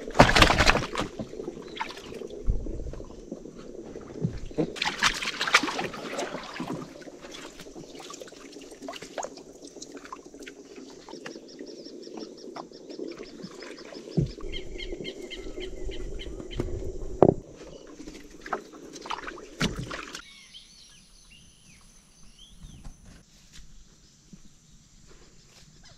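Scattered knocks and bumps in a small boat with some water splashing, and birds calling in short repeated notes in the background.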